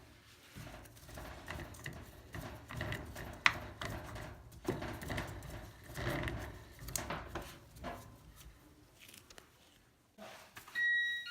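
Irregular clicks, taps and light knocks of hands handling parts and tools during dryer repair work. A brief high whine comes near the end.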